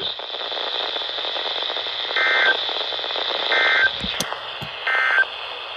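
Emergency Alert System end-of-message code on a weather radio broadcast: three short warbling data bursts, about a second apart, over steady radio hiss. It marks the end of the alert message.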